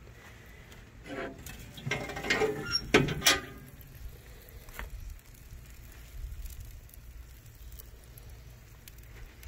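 The steel lid of an offset barrel smoker being lifted open: metal scraping, then two sharp metallic clanks about three seconds in.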